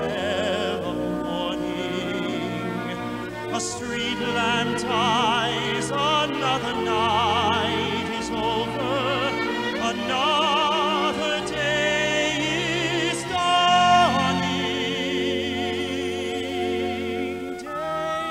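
A slow ballad sung in a full operatic style with wide vibrato on long held notes, over orchestral accompaniment.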